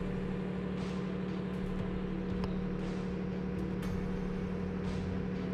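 A vehicle engine idling: a steady, unchanging low drone.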